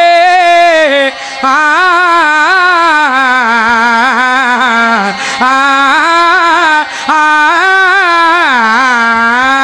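A young man singing a Punjabi devotional qasida solo into a microphone over a sound system. He holds long, ornamented notes with wavering pitch, breaking off briefly for breath about a second in, around five seconds in, and again near seven seconds.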